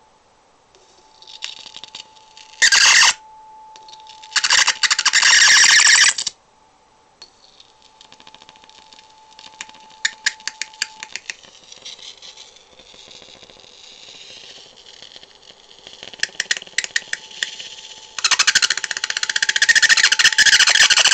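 High-voltage arc drawn from a homemade transformer driven by a ZVS driver, crackling and hissing in loud irregular bursts: a short one about three seconds in, a longer one around five seconds, and a sustained one over the last three seconds. Between the bursts there are quieter runs of sharp crackling snaps with a faint steady tone underneath.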